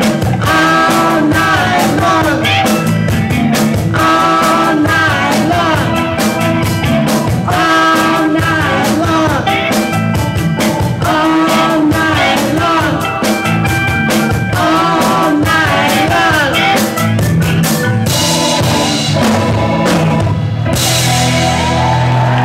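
Live blues-rock band playing: electric guitars, bass and drum kit with a woman singing lead into a microphone. Near the end the cymbals crash and the band rings out on a held chord as the song closes.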